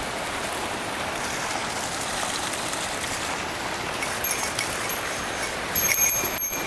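Mountain stream rushing steadily over rocks. From about four seconds in comes a light, high metallic tinkling a few times, and near the end a brief louder rustle.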